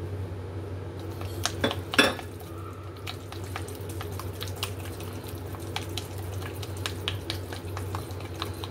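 Wooden chopsticks stirring minced meat in a bowl, ticking lightly against the bowl's side many times. There are a few louder knocks about two seconds in, over a steady low hum.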